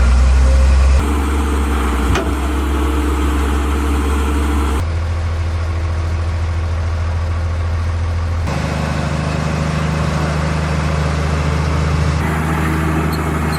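Heavy machinery engines running steadily at a low pitch. The engine sound changes abruptly about a second in, and again near five, eight and twelve seconds in, as clips of different machines follow one another.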